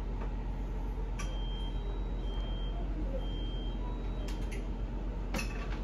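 A series of about four high electronic warning beeps, roughly one a second, over a steady low rumble, with a few sharp knocks; the beeps come from a fire scene where firefighters are working.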